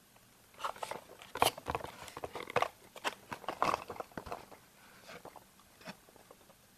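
Cardboard packaging of a six-pack of Kinder Surprise eggs being handled, with the printed card sliding, scraping and crackling for about four seconds, then a few light taps.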